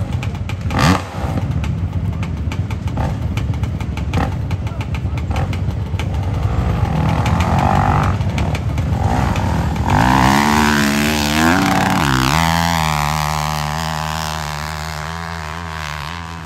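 Hillclimb dirt bike engine: a rough, crackling idle with throttle blips at the start line, then about ten seconds in it revs hard as the bike launches, the pitch climbing steeply, dipping briefly, then holding high while it gradually fades as the bike climbs away up the slope.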